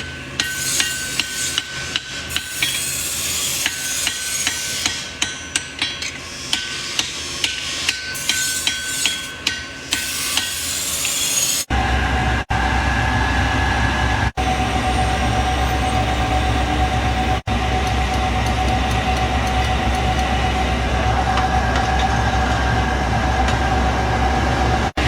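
Hammer striking metal on an anvil while forging a knife, repeated blows about two a second. About halfway through, this cuts off abruptly and gives way to a loud, steady rumble with a steady whine.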